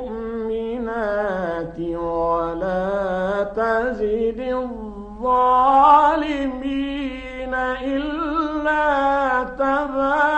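A male Qur'an reciter's voice in the melodic mujawwad style, drawing out long held notes with wavering ornaments. There is a short breath break about five seconds in, then a louder, higher passage.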